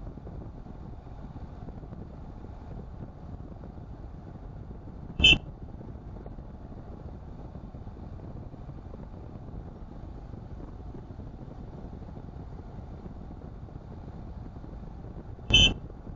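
Steady road and engine noise of a Tata Nexon on the move, heard from inside the car. Two short, loud beeps come about ten seconds apart.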